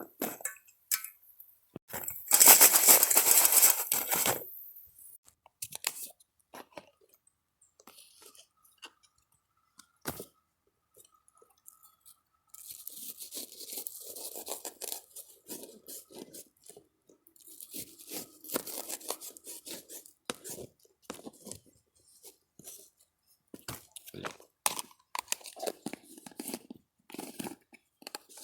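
Crinkling, tearing and crunching of packaging being handled, in irregular bursts with quiet gaps between them; the loudest burst comes about two seconds in.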